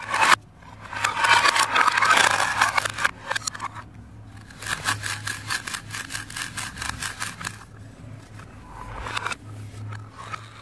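Velcro-joined plastic toy fruit pieces being pulled apart and handled: rasping rips made of rapid fine crackles, in two long tears near the start and in the middle and a shorter one near the end.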